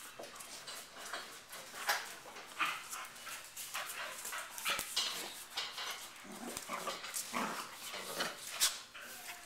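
Dogs, including a pitbull–Labrador mix, play-wrestling on concrete: repeated short scuffling and scrabbling noises, with a few brief vocal sounds from the dogs in the second half.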